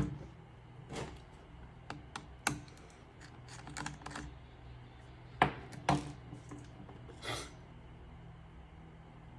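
Scattered small clicks and taps of small hard parts being handled while a laptop's M.2 SSD is swapped, with two sharper knocks about five and a half and six seconds in and a short scratchy sound about seven seconds in, over a low steady hum.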